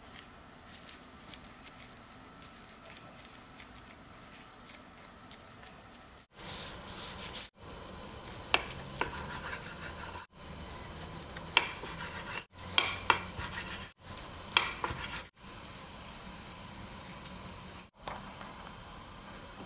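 Food sizzling in a frying pan, heard in several short edited clips, with a few sharp clicks of a utensil against the pan in the middle stretch.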